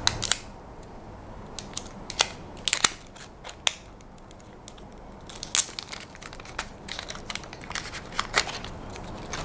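Irregular small clicks and crinkles of plastic film being peeled off a Nubia Alpha wearable smartwatch while it is handled in the fingers.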